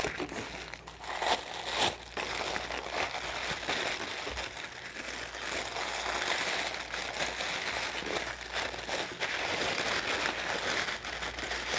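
Packing paper crinkling and rustling as hands unwrap it, with a few sharper crackles in the first two seconds.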